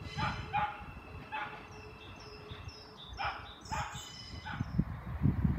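A dog barking about five times in short, sharp barks, some in quick pairs, with thin high bird chirps in the middle and a low steady rumble underneath.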